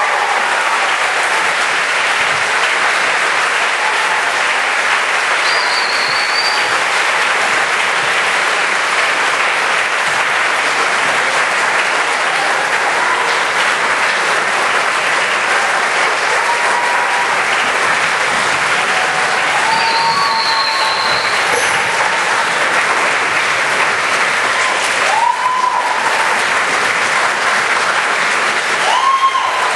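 Audience applauding steadily after a concert band performance, with a few brief high calls or whistles over it.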